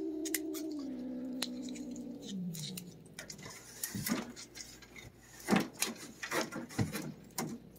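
A cat's long, low, drawn-out yowl that steps down in pitch twice and fades out about three seconds in. It is followed by a string of light clicks and knocks.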